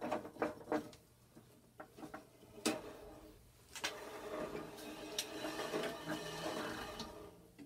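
Lower wheel of a Craftsman 10-inch bandsaw spun by hand with a newly fitted drive belt and blade, turning with a steady whir and light ticks from about four seconds in until just before the end. Before that come a few clicks and one sharp knock.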